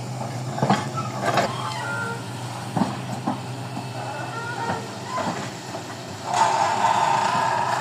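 Heavy construction machine's engine running steadily, with several sharp knocks and clanks in the first half. A louder whine sets in about six seconds in.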